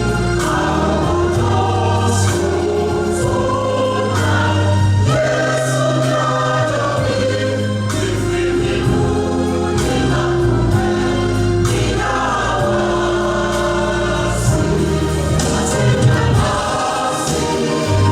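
A choir singing a slow hymn with sustained chords over a steady bass accompaniment.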